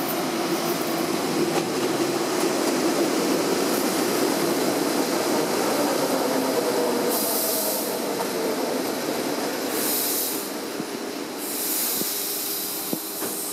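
ER2T electric multiple unit rolling into the platform and slowing to a stop, its wheels rumbling on the rails. Three short bursts of compressed-air hissing come in the second half.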